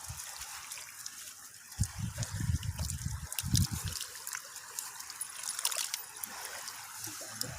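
Water trickling and sloshing as a fishing net is worked in shallow water, with dull low bumps about two seconds and three and a half seconds in.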